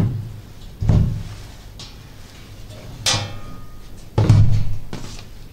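Sheet-metal amplifier cabinet being lifted and set down on a wooden board: a dull thump about a second in, a sharper knock with a short metallic ring about three seconds in, and another heavy thump a second later.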